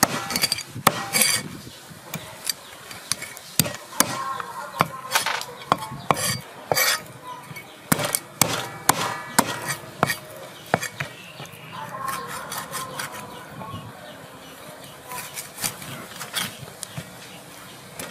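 A cleaver knocking and scraping on a round wooden chopping block as fins are cut off a whole fish: irregular sharp knocks with rasping scrapes between them, fewer knocks for a few seconds after the middle.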